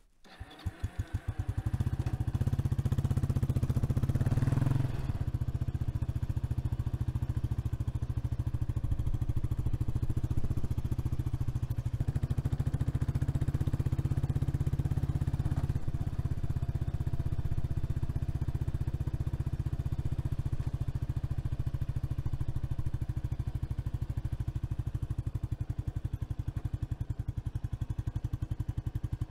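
Kawasaki Estrella's 249 cc air-cooled single-cylinder four-stroke engine catching about half a second in, then running with a steady pulsing beat as the motorcycle is ridden along. The revs rise about four seconds in and drop back, then hold steady.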